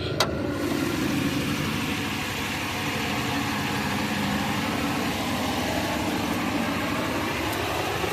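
2005 Chevy Impala's V6 engine idling with a misfire, running rough and uneven. A single short click comes just after the start.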